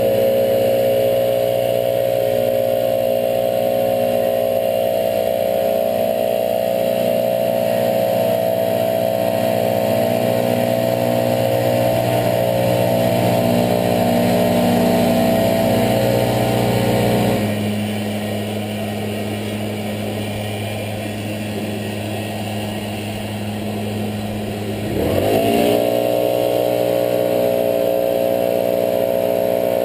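Gas backpack leaf blowers running at full throttle, a steady engine drone. About 17 seconds in one drops back to a lower, quieter speed, then revs back up with a rising whine about 25 seconds in.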